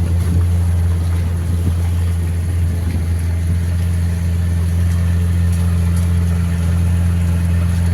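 Boat engine running steadily as the boat cruises, a constant low drone with no change in speed.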